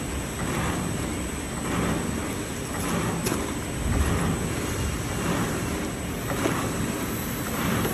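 Automatic packaging machines running: a steady mechanical noise with a soft regular beat about once a second as the machine cycles.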